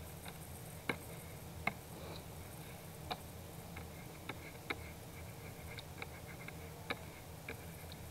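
Sparse, irregular light clicks from operating a computer's input devices during digital painting, over a low steady hum.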